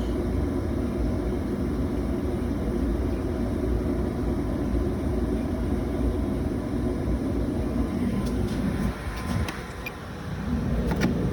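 Steady low mechanical rumble that eases off about eight and a half seconds in, followed by a few light clicks and knocks.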